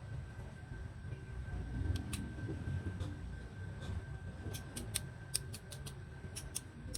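Scattered sharp clicks and light taps, in small clusters about two seconds in and again in the second half. They sit over a low steady rumble and a faint steady high-pitched tone.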